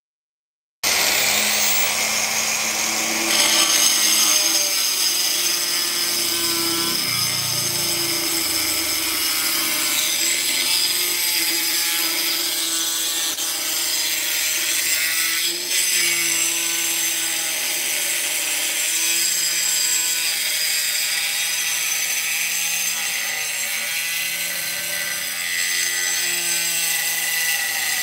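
Handheld angle grinder with a cutting disc slicing through a ceramic floor tile: a steady, high-pitched whine of the spinning disc grinding through the tile, starting suddenly about a second in.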